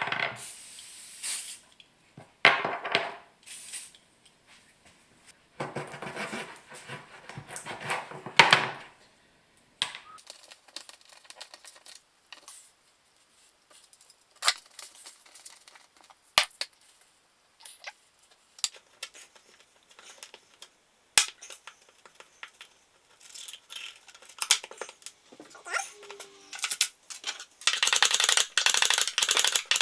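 Small metal parts and tools being handled on a workbench: a few stretches of scraping and rubbing, scattered sharp clicks and clinks, then a dense rattle near the end.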